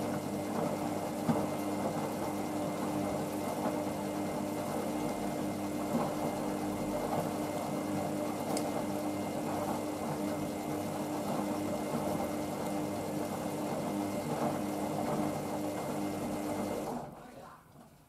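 Hoover VisionDynamic washing machine's drum tumbling a wet, sudsy load on the rinse: a steady motor hum over water and laundry sloshing, which stops abruptly near the end as the drum pauses.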